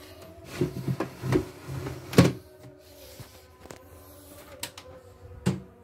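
Hollow plastic clunks and clicks as the embroidery unit is handled and fitted onto a CNY portable embroidery machine. The loudest knock comes about two seconds in and another near the end, with a faint steady hum underneath.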